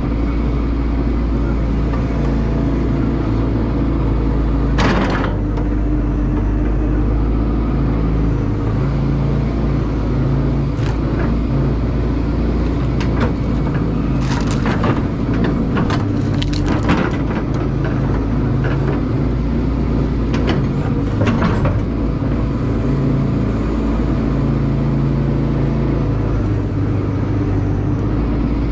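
Caterpillar excavator's diesel engine running steadily under hydraulic load, its note stepping up and down as the digging load changes. A scattering of sharp cracks and knocks comes through, one about five seconds in and a cluster through the middle, as the bucket works dirt and roots around the stump.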